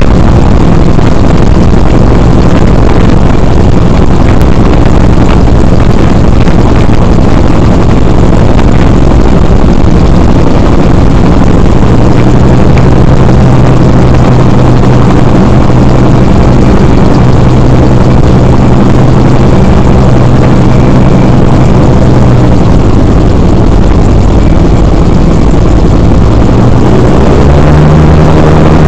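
A model aircraft's motor and propeller running steadily right by an onboard camera's microphone, loud and distorted. Its pitch shifts a little partway through and steps up near the end.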